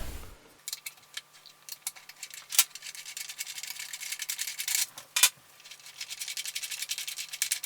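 Screws being undone from the woofer of a Bowers & Wilkins 602 S2 speaker with a screwdriver: a run of rapid light clicks, with a short break a little after five seconds in.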